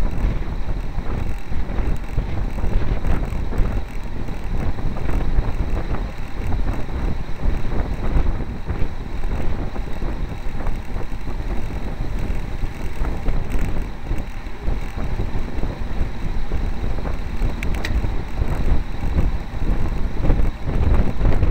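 Steady wind rush buffeting the microphone of a camera riding on a road bicycle at speed, with a brief click near the end.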